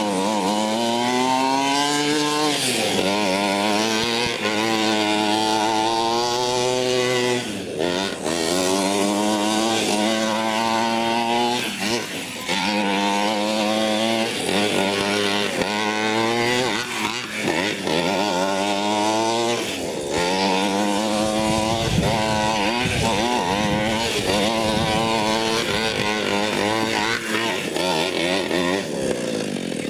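Small two-stroke gas engine of a 1/5-scale RC monster truck, revved up and down over and over as it drives. Its pitch climbs and falls every few seconds, with short drops where the throttle is let off.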